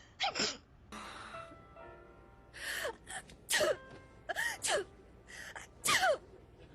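Voice-acted anime sneezes: a string of short sneezes and the gasping "ah… ah…" build-ups before them, the loudest about six seconds in. Brief background music sounds between about one and three seconds in.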